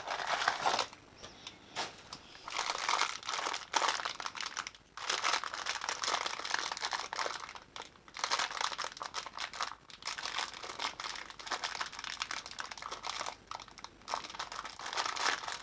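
Packaging of a Funko Mystery Mini crinkling as it is handled, in irregular bursts with short pauses: the blind-box figure's wrapping being unpacked and felt through.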